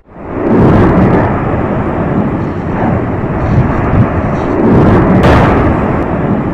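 Volcanic eruption: a deep, continuous rumbling that swells in waves, with a sharper blast about five seconds in.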